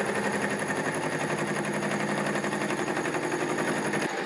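Hole saw in a milling machine cutting a notch into a metal tube, a rapid rattling chatter over the machine's steady running. The cutting noise drops off just after four seconds in.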